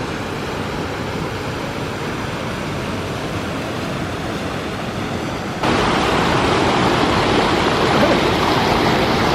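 Rushing water of a waterfall, a steady noise that abruptly gets louder about five and a half seconds in.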